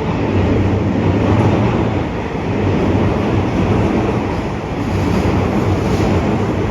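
Electric commuter train running along the platform of an underground station: a loud, steady low rumble of wheels and motors.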